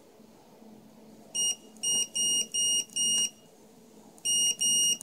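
Fluke 101 multimeter's continuity beeper sounding as the test probe tips are tapped together: seven short, loud, high-pitched beeps in two uneven groups.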